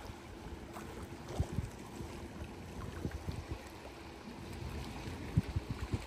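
Wind buffeting the microphone over choppy seawater lapping at a harbour's concrete edge, with irregular low thuds.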